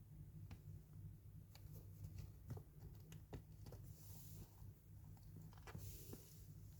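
Near silence: a steady low room hum with scattered faint light clicks and taps.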